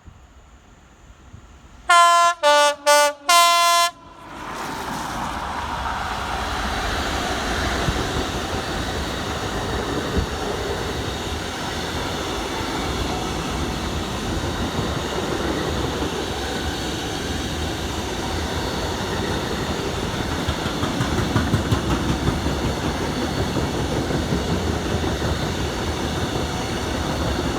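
Class 66 diesel locomotive's horn sounding about two seconds in, four short loud blasts alternating between two notes, a driver's salute. Then the locomotive and its freight wagons run past with a steady rumble and clatter of wheels on rail.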